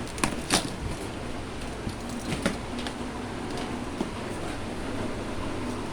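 Packaging being handled and pulled off a boxed appliance: a few short crackles and clicks over a steady background hum.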